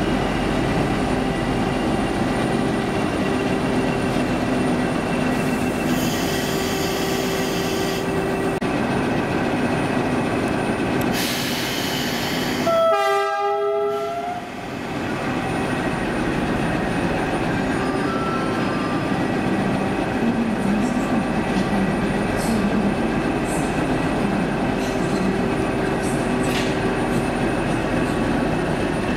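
CP Series 1400 diesel locomotive running with a steady engine note. There are two stretches of hiss, and a short horn blast about thirteen seconds in.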